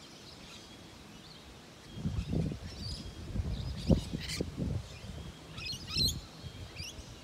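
Birds chirping and calling in the trees, with short scattered notes that are busiest about six seconds in. From about two seconds in, irregular low thumps and rumbles come through as well, the loudest about four seconds in.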